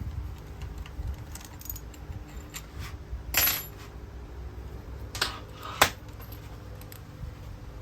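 A few sharp metallic clinks and clacks of metal objects being handled. The loudest is a short rattle about three and a half seconds in, followed by two sharp clacks near the six-second mark, over a low steady hum.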